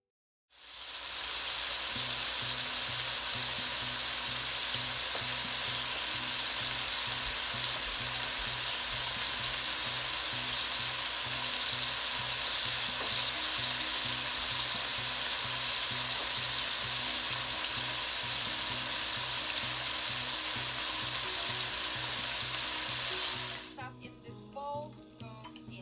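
Chicken pieces and shrimp searing in hot oil in a nonstick wok: a loud, steady frying sizzle that starts about half a second in and cuts off abruptly near the end.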